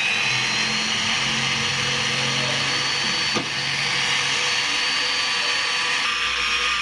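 Electric drill with an 8.5 mm bit running steadily as it bores into a steel part of a hydraulic floor jack, making the hole to be tapped for an M10 thread.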